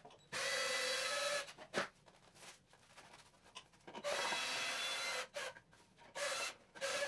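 Cordless drill-driver running in four bursts at a steady pitch, two of about a second and two shorter ones near the end, backing screws out of wooden battens. A sharp knock falls between the first two bursts.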